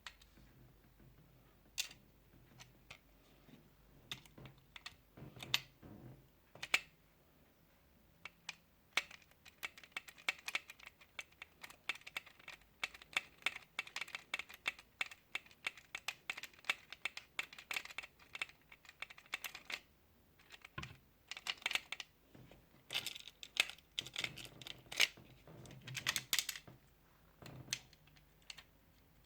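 Irregular small clicks, taps and light rattles of screws and metal parts being handled while an NZXT Kraken G12 bracket is fitted to a graphics card. A denser run of quick clicking comes in the middle.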